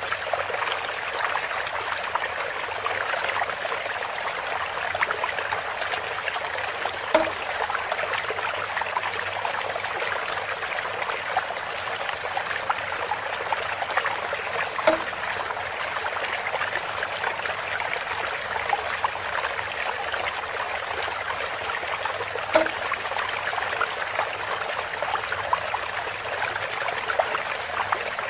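Water steadily trickling and splashing through a bamboo spout, with a short louder sound recurring about every seven and a half seconds, three times.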